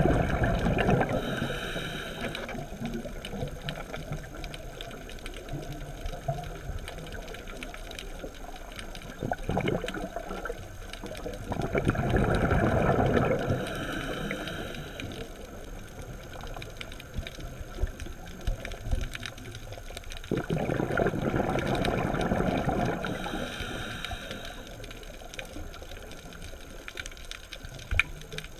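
A scuba diver's regulator breathing heard underwater: a gurgling rush of exhaled bubbles recurs about every nine seconds, three times, over a murky background hum.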